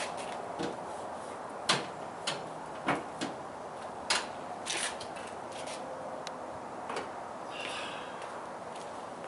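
A 2017 Toyota RAV4's hood being unlatched at the front and lifted open: a string of sharp clicks and clunks, the loudest about two seconds in, then a brief rustle near the end.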